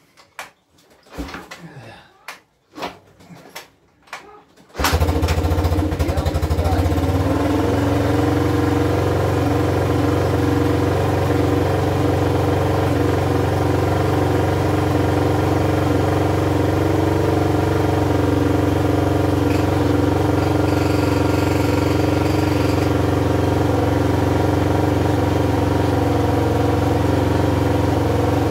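A few knocks, then the single-cylinder engine of an Aeon Cobra 180cc ATV fires about five seconds in, started without a battery. It runs a little unevenly for a couple of seconds, then settles into a steady idle through a sport exhaust.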